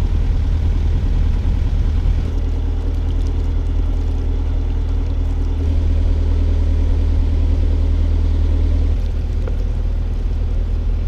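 Narrowboat engine running steadily while under way, a low, even engine note whose pitch shifts slightly about halfway through.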